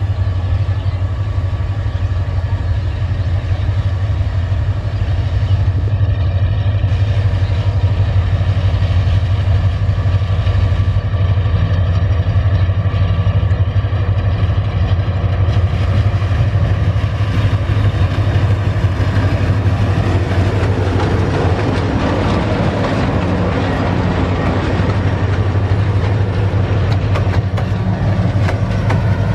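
Diesel locomotive engine running with a steady low drone as the train approaches. From about two-thirds of the way in, the rumble of wheels on the rails grows as the locomotive and coaches pass close by.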